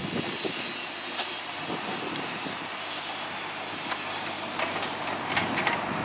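John Deere mini excavator running steadily as it digs, with a few sharp clicks and clanks, several close together near the end.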